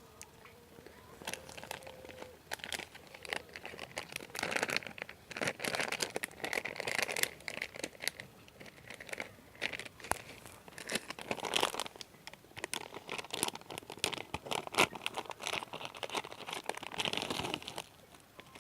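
Packaging crinkling and rustling with many small clicks as a charging cable is taken out of its opened package.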